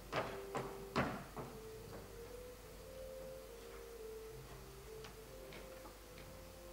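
Footsteps on a stage floor: four sharp steps about half a second apart at the start, then a few fainter ones. Under them, faint held pure tones that shift slowly from pitch to pitch, like a soft slow melody.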